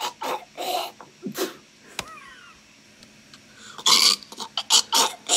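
A man making a spitting sound effect with his mouth: throaty hawking and sputtering bursts at the start, then a cluster of sharper spit sounds near the end.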